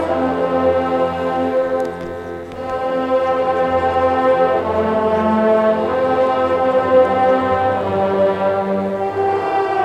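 High school marching band playing sustained brass chords, with low brass to the fore; the volume dips briefly about two seconds in, then swells back.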